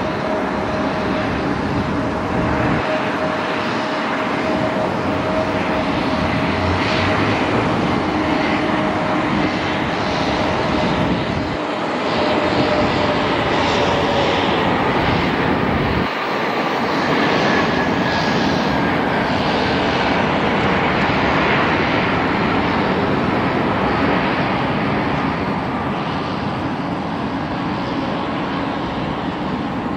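Jet engines of a Frontier Airbus A320-family airliner landing and rolling out along the runway: a steady, loud rushing jet noise. A whine slowly falls in pitch through the first half, and a higher whine falls slowly in the second half.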